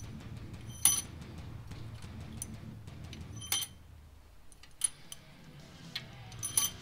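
Steel pushrods clinking against each other and against the cylinder head as they are fed down into the lifters of a Mopar 360 small-block V8: four or five sharp metallic clinks, each ringing briefly, the last a quick double.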